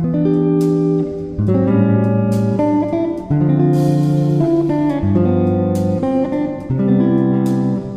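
Background music: guitar playing chords that change about every second.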